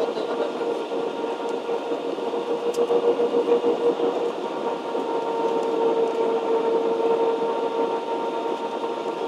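Cabin noise inside a jet airliner on approach: the steady rush of airflow and engines, with a steady hum running through it.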